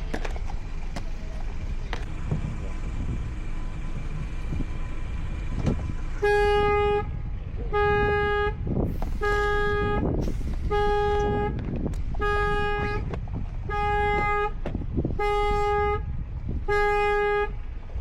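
Car horn sounding in even, repeated blasts about every second and a half, starting about six seconds in. This is the steady on-off pattern of a car alarm going off.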